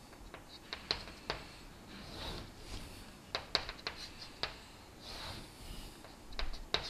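Chalk on a chalkboard as straight lines are drawn: a scatter of light taps and clicks, and two soft scraping strokes about two seconds and five seconds in.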